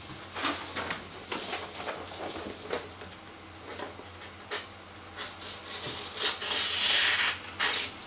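A sheet of white paper rustling as it is handled, then the freshly sharpened blade of a Victorinox Swiss Army knife slicing through it, a hissing cut of about a second and a half near the end. This is a paper-cutting test of the edge, which still falters near the start of the blade's curve.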